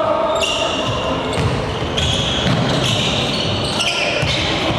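Basketball game on a wooden gym floor: a ball bouncing as it is dribbled, with sneakers squeaking several times on the boards as players run the court.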